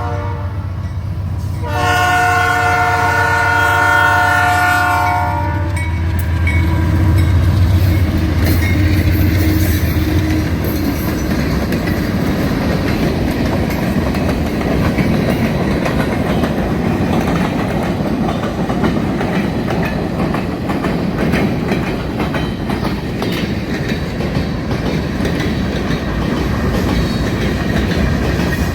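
Multi-chime air horn of a GE B39-8E diesel freight locomotive: one blast cuts off just after the start, then a second blast of about four seconds. The locomotives' diesel engines then rumble by, followed by freight cars rolling past with the clickety-clack of wheels over rail joints.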